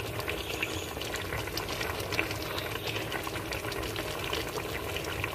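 Pork ribs caldereta simmering in a pot: a steady bubbling of thick sauce with many small pops, over a faint low hum.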